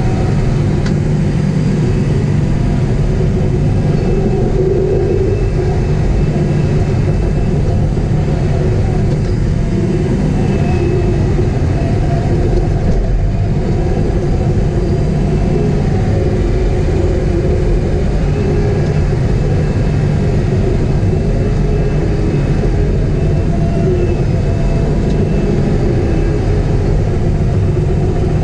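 Caterpillar 973C track loader's diesel engine running steadily under load while the machine pushes dirt, heard from inside the cab.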